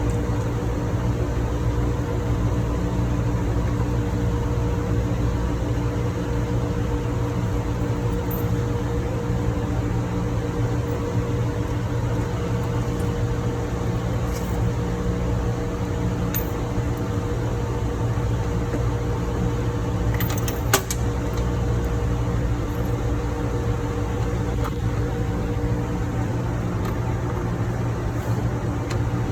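Steady drone of ship engine-room machinery with several constant hum tones in it, and one sharp click about 21 seconds in.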